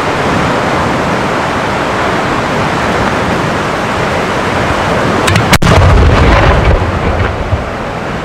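A steady rushing hiss, then about five and a half seconds in a single sharp bang: the lift charge firing a 200 mm Italian cylinder shell out of its mortar. A low rumble follows the bang.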